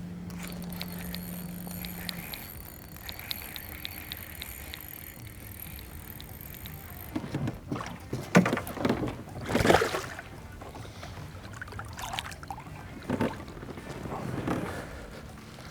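Noises aboard a fishing boat on the water: a faint steady high whine for the first seven seconds, then a string of short sudden noises, the loudest a little past the middle.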